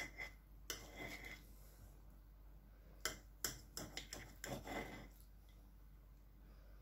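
Knife and fork on a ceramic plate while a cooked pork knuckle is cut: light clicks and short scrapes about a second in, then a cluster of taps and clinks a few seconds later, all quiet.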